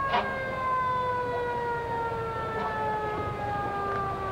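Fire truck siren winding down slowly, one steady wail falling gradually in pitch throughout. A brief sharp click comes just after the start.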